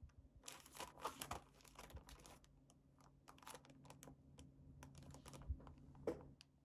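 Faint crinkling and crackling of a clear plastic packaging sleeve as it is handled, a cluster of crinkles in the first couple of seconds, then scattered crackles.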